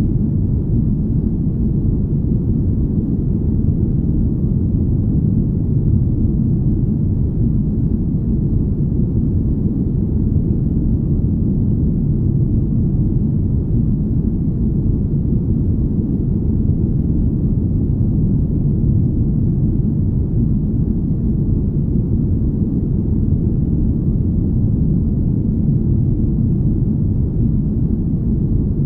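Deep, smooth ambient rumble: a steady low noise with no tones and no changes, meant as the hum of a spaceship.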